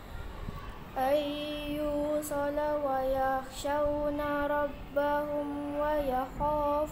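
A young girl's voice reciting the Quran in a melodic chanting style (tilawah). After a quiet first second, she holds long steady notes with small ornamented turns, pausing briefly between them.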